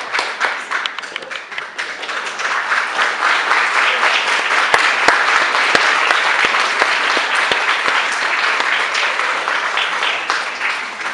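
Sustained applause from a theatre audience, dense and steady, with a few sharp single claps standing out in the middle; it starts to die away at the very end.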